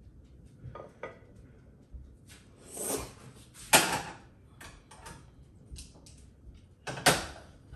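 Pots and pans handled at a kitchen stove: light clinks of a metal spoon against a small saucepan, then two loud clanks of cookware, about four and seven seconds in.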